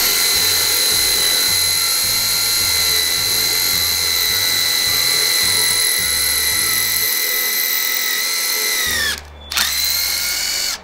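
HiKOKI WH12DD 10.8 V cordless impact driver drilling into a concrete block with a 4.5 mm bit: a steady high whine that winds down and stops briefly about nine seconds in, then starts again.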